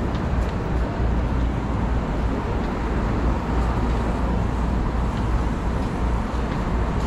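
City street traffic noise: a steady rumble of passing cars and road traffic, heaviest in the low end.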